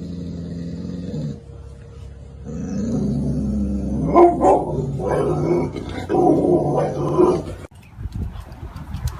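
A dog vocalizing: a held low note, then several seconds of drawn-out, rising and falling growling moans. The moans stop abruptly near the end.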